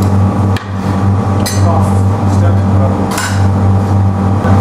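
Three sharp metal taps with a short ring, from the glassblower's hand tool striking against the punty iron and hot glass, over a steady low hum from the glass furnace.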